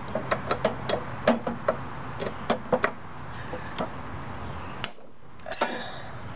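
Socket ratchet on an extension clicking as the head bolts of a Briggs & Stratton 825 Series OHV engine are turned loose. Sharp, irregular clicks, thick over the first three seconds and sparser after.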